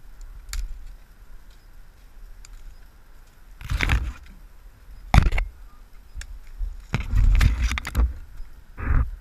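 Tree branches and leaves brushing and scraping against a head-mounted camera as a horse carries it under a tree, heard as four rustling bursts, the longest lasting about a second a little before the end.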